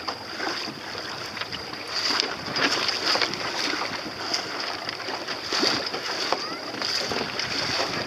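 Water splashing and slapping against the hull of a small sailboat under way, in irregular bursts, with wind on the microphone.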